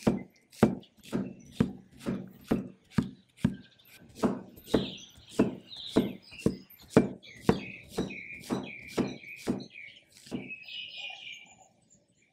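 Cleaver chopping zucchini on a wooden cutting board: steady knife strokes about two a second, which stop about ten seconds in.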